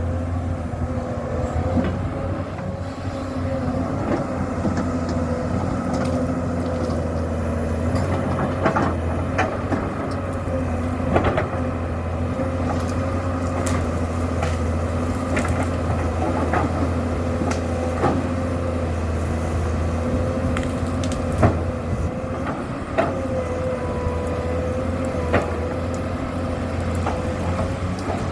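Komatsu PC200-7 hydraulic excavator's six-cylinder diesel running steadily under load, with a hydraulic whine that wavers slightly in pitch. Sharp knocks and cracks come through it again and again as the machine works at land clearing, the loudest just past the two-thirds mark.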